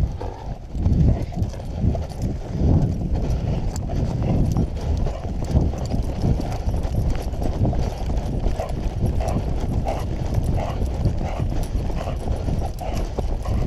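A hunter's footsteps thudding on a dirt track at a run, in a steady stride rhythm, picked up close by a body-worn camera.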